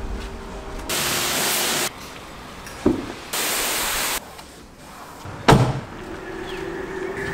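Pressure-washer spray jet hissing in two separate bursts of about a second each, with a sharp knock between them and a louder thump a little later; a steady hum follows near the end.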